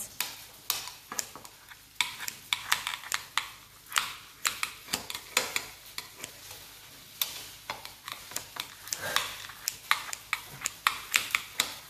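Kitchen scissors snipping through a crisp-fried Korean seafood pancake (haemul-jeon): an irregular run of sharp snips and crackles as the blades cut through the crust.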